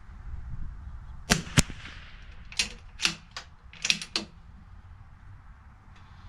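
Bergara B14R .22 LR bolt-action rifle: a sharp shot about a second and a half in, then a quick run of about five metallic clicks as the bolt is cycled to chamber the next round.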